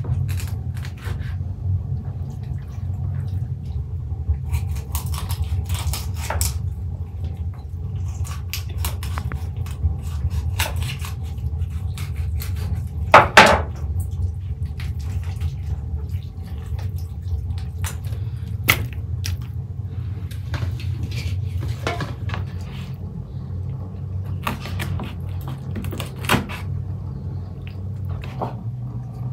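Large kitchen knife cutting raw whole chickens on a wooden cutting board: scattered knocks and scrapes of the blade against the board, with a louder knock about 13 seconds in, over a steady low rumble.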